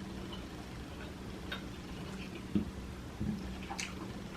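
Faint close-miked chewing with a few sharp mouth clicks and lip smacks, the clearest near the end, over a low steady hum.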